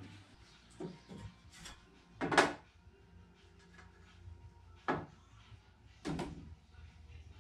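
Scattered knocks and clunks of wood being handled while framing, the loudest a longer clunk about two and a half seconds in, with two more single knocks later.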